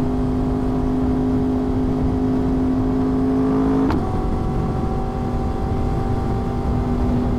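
Yamaha R1's inline-four engine running steadily at cruising speed under heavy wind rush. About four seconds in there is a click and the engine note dips briefly, then runs on steadily.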